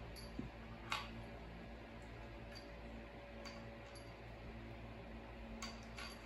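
A few faint clicks over a low steady hum: the loudest about a second in, and two close together near the end.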